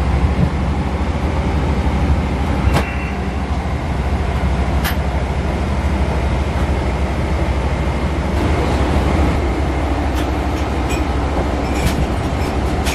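Steady low rumble inside a vehicle's cabin, with a few faint clicks and knocks at intervals.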